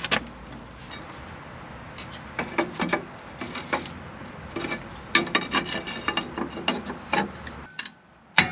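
Irregular scraping and knocking of metal parts being handled and fitted together, steel frame repair pieces rubbing and bumping against the Jeep's frame.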